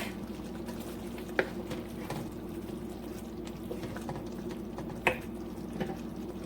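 Cream sauce with cheese simmering and bubbling softly in a pan as pieces of fried chicken are stirred in, with a few light clicks of a utensil against the pan about a second and a half in and again near five seconds, over a steady low hum.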